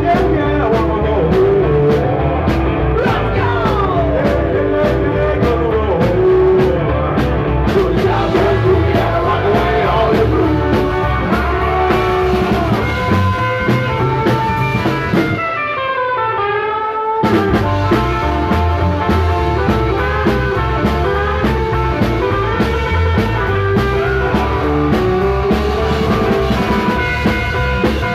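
Live rock and roll band playing upright double bass and electric guitar, with singing. About halfway through the band stops for a moment while a single descending run of notes plays alone, then the full band comes back in.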